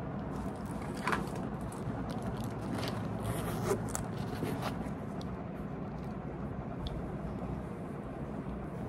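Small handling sounds as things are packed into a denim backpack: scattered brief clicks, scrapes and rustles over a steady low background hum.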